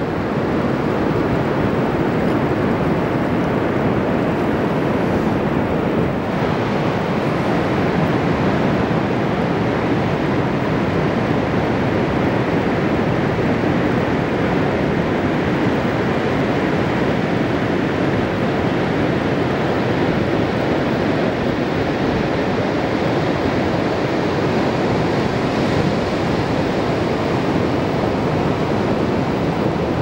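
Pacific Ocean surf breaking offshore, an even, continuous rush of waves with no single crash standing out.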